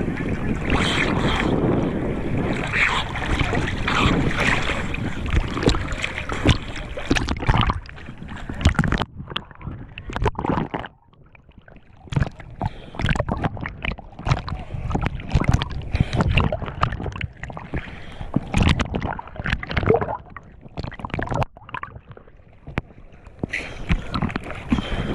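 Sea water splashing and sloshing close to the microphone as a person swims in strong waves, with wind noise. It is a dense, continuous wash for the first eight seconds or so, then breaks into choppy, irregular splashes and gurgles with short gaps.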